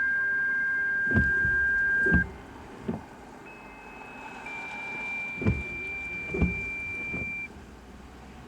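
Two-tone sequential radio activation tones: a steady pure tone ends about two seconds in, then a second sequence follows, a short higher tone stepping slightly down into a longer tone held about three seconds. These are the signals sent to trigger the siren test. A few dull thumps fall in between.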